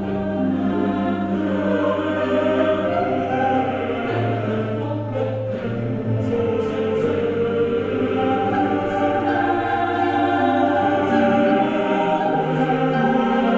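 Choral music: voices holding long, slowly changing notes over a low sustained bass note, which drops out near the end.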